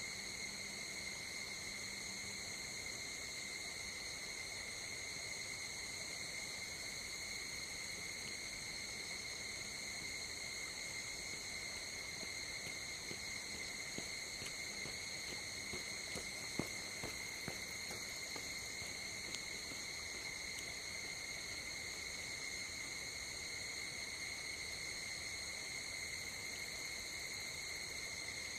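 Steady night insect chorus: a continuous high trill with overtones that does not change. A few faint clicks fall in the middle, one sharper than the rest.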